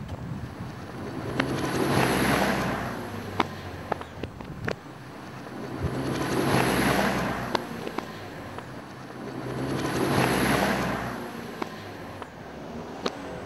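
Rushing noise that swells and fades three times, about four seconds apart, like surf or wind gusts, with scattered sharp clicks.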